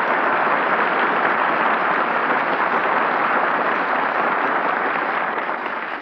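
Studio audience applauding, slowly tapering off near the end, on a 1942 radio broadcast recording.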